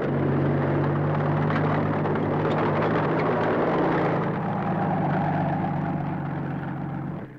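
The Mole, a tracked drilling vehicle, driving down a ramp out of its transporter pod: a steady low engine hum under a noisy rumble of machinery and tracks. A higher steady whine joins about halfway, and the sound cuts off just before the end.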